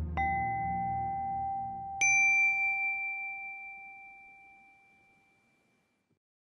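Two struck bell chimes about two seconds apart, the second higher and louder. Each rings on and slowly fades away. A low musical drone underneath fades out within the first few seconds.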